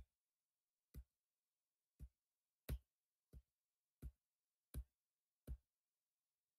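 A computer key or mouse button clicked about eight times in a row, roughly once a second and a little faster toward the end, each a sharp tap with a low knock. The clicks are scrolling a web page down screen by screen.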